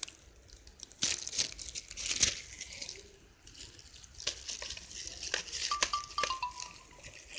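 Plastic packaging bag crinkling and rustling in the hands in irregular bursts, with small handling clicks. A brief thin squeak sounds about six seconds in.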